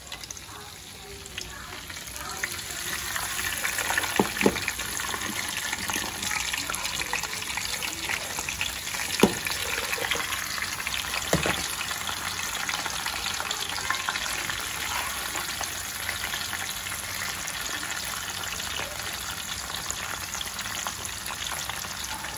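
Frozen, par-cooked potato fries frying in hot oil in a skillet, a steady sizzle that builds up over the first few seconds as they go in and then holds. There are three sharp clicks in the first half.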